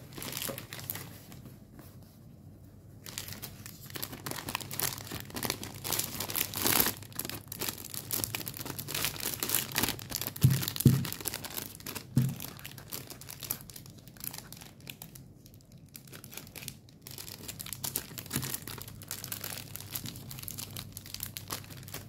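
Clear plastic book covers and sleeves crinkling and rustling as manga volumes are handled, with a few soft knocks about halfway through.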